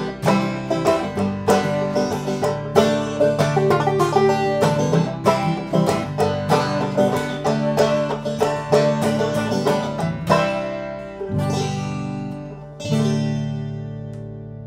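Banjo picking quick runs of notes with a Taylor koa acoustic guitar, in bluegrass-style closing bars. About ten seconds in the two strike a chord, then a couple of seconds later a last chord that is left to ring out and fade.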